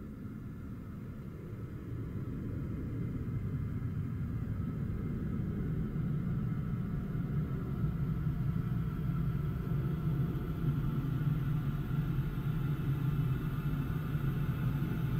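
Low rumbling electronic drone from a synthesized music track, swelling gradually louder, with a steady low hum settling in about six seconds in.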